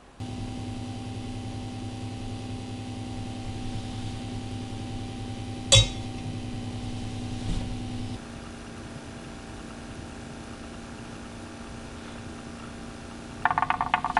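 A steady electric machine hum with a single sharp clink about six seconds in. The hum drops to a quieter level a little after eight seconds. Rhythmic percussive music comes in near the end.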